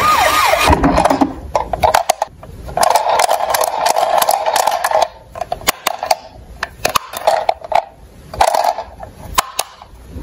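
A toy police car's electronic siren gliding down and stopping within the first half second. Then many sharp clicks and rattles of plastic and die-cast toy vehicles being picked up and handled in a cardboard box, with a few short stretches of a mid-pitched whirr.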